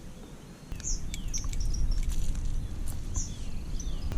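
Birds chirping, several short high calls and down-slurred notes, over a low rumble that gets louder about a second in, with a few sharp clicks.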